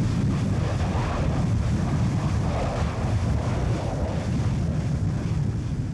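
Wind buffeting the microphone: a steady low rumble with a hiss above it, swelling slightly now and then.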